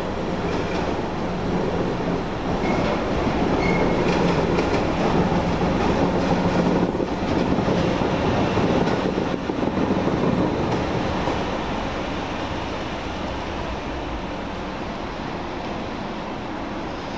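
HKX express train hauled by a Siemens ES 64 U2 Taurus electric locomotive rolling slowly into a platform: a steady electric hum over the rumble of wheels on rails, loudest as the locomotive passes, then easing as the coaches roll by. A few brief high squeals come in the first few seconds.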